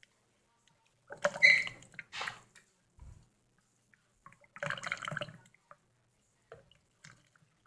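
Coconut water dripping and splashing out of a freshly opened coconut, in two bursts about a second in and near the middle.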